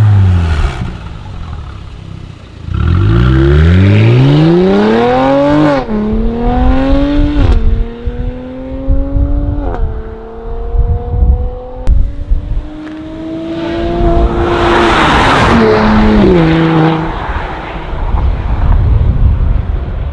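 Mercedes-AMG GLC 43's twin-turbo V6 through a valvetronic catback exhaust with the valves open. A rev falls away, then the car accelerates hard with the pitch climbing and dropping sharply at three quick upshifts. The note keeps rising more slowly, drops again later, and fades.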